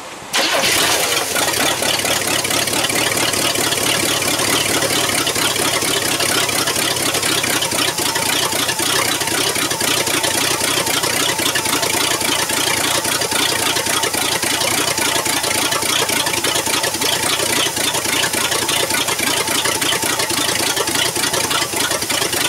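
Chevrolet 305 small-block V8 with a Rochester two-barrel carburetor firing up cold about half a second in and idling steadily. It runs loud and crappy-sounding because the exhaust is not hooked up.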